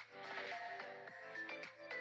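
Background instrumental music: short pitched notes in a quick, steady rhythm.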